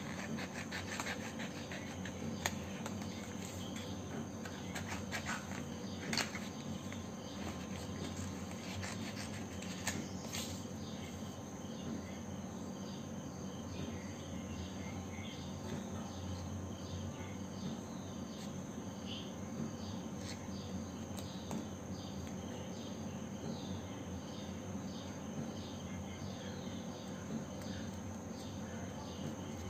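Small scissors snipping paper in a run of short cuts, sharper clicks in the first ten seconds, then a regular ticking of small snips about twice a second. A steady high tone and a low hum sit underneath.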